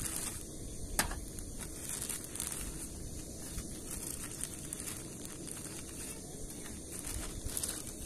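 Plastic zip-lock bag crinkling in irregular bursts as items are taken out of it and set down on a folding camp table, with one sharp tap about a second in.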